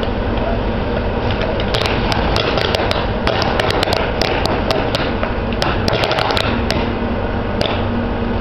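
Steady engine drone of a fire engine running its pump to feed the hose line, with a scatter of sharp clicks and pops from about two seconds in until near the end.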